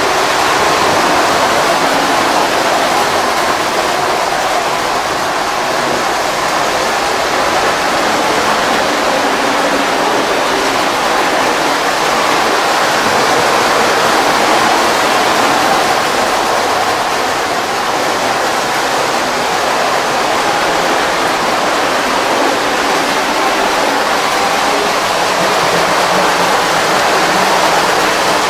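Postwar Lionel O-gauge trains, led by Alco F-A2 diesel units, running on three-rail tubular track. The wheels and motors make a steady rushing rumble.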